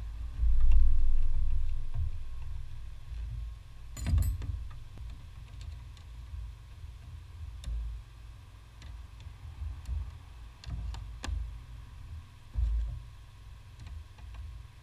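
Scattered metal clicks and taps of a wrench working a brake line fitting on the brake master cylinder. There is a dull low thump about half a second in and a sharp click about four seconds in.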